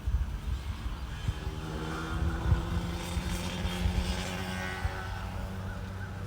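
A motor vehicle's engine running, a steady drone with several even pitches, over low rumble from wind on the microphone.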